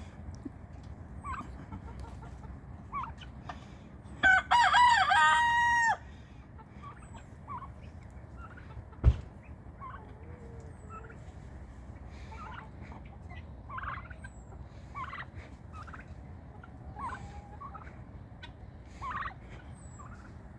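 A rooster crows once, about four seconds in, a call of nearly two seconds ending on a held note. Soft short clucks and chirps of other poultry come and go, with one sharp knock near the middle.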